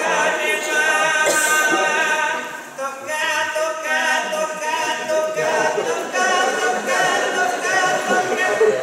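Unaccompanied group singing in Bulgarian folk style, several voices holding long wavering notes together, with a brief break about three seconds in.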